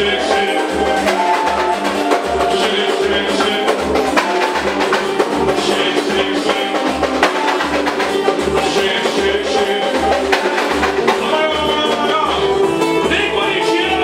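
Band music with drum kit, bass and guitar playing a steady beat, with voices coming in near the end.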